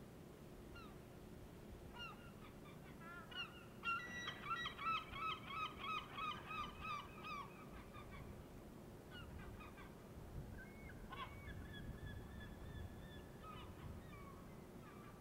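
Birds calling over water: a quick run of about a dozen short, harsh calls, about three a second, starting about four seconds in, with scattered softer calls and a few drawn-out notes later, over a low background hiss.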